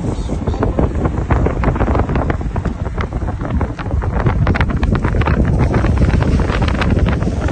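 Strong wind buffeting the microphone: a heavy low rumble with constant crackling pops.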